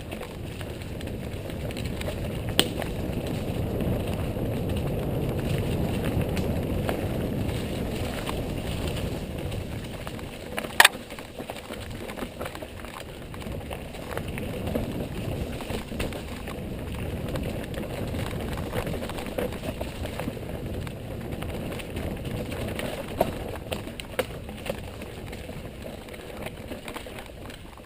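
Mountain bike being ridden over a dirt trail: a steady rumble of tyres and rattling bike parts, with two sharp knocks, the louder about eleven seconds in.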